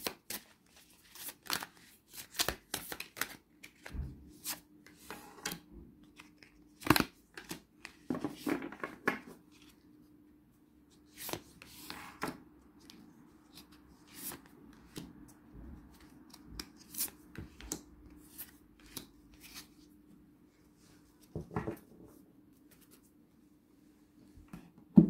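A deck of oracle cards being shuffled by hand, a quick run of riffling clicks and rustles, then single cards snapped and slapped down onto a table as they are dealt out. A faint steady hum runs underneath.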